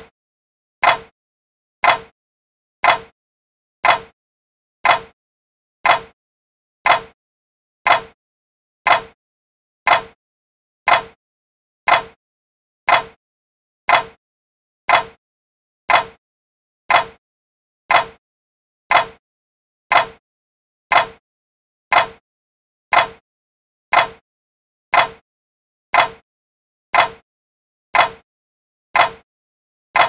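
Clock ticking steadily, one sharp tick about every second with silence between.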